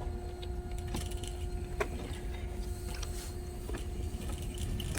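A steady mechanical hum over a low rumble, with a few faint clicks scattered through it.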